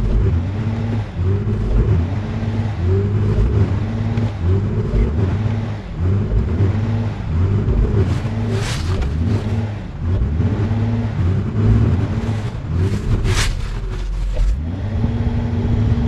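Honda's engine revving in repeated rising and falling surges, about once a second, while it tries to reverse out of deep snow. The wheels spin without getting grip because the vehicle is stuck. Brief bursts of hiss come about halfway through and again a few seconds later.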